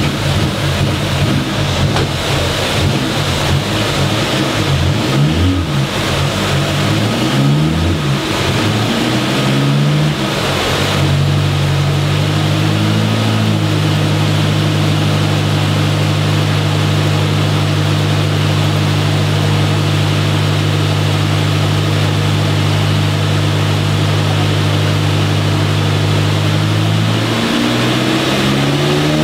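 Turbocharged Citroën ZX engine running on a chassis dyno. The revs rise and fall for about the first ten seconds, then hold at a steady note, dipping and climbing again near the end.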